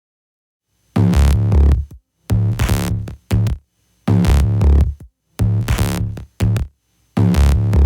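Electronic background music with a heavy drum-machine beat, coming in about a second in and played in choppy phrases that stop and start abruptly.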